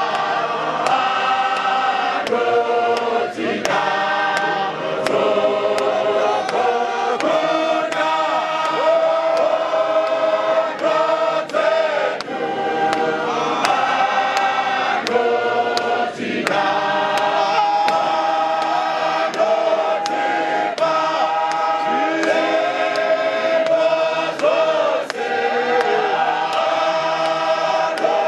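Church congregation singing a hymn together in several-part harmony. A sharp, regular beat runs under the singing.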